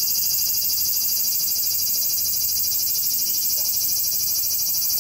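A dense chorus of cicadas singing: a steady, high-pitched, shrill drone with a fast pulsing texture.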